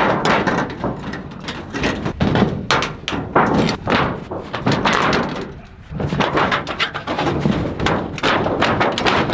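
Thin, rusted sheet-metal barn roofing being pried up with a claw hammer and torn and bent back by hand. There are repeated metallic knocks, clanks and crinkling, with a short lull about halfway.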